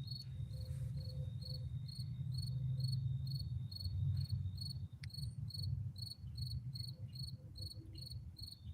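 Crickets chirping in an even rhythm, about three chirps a second, over a steady high insect trill, with a low rumble underneath.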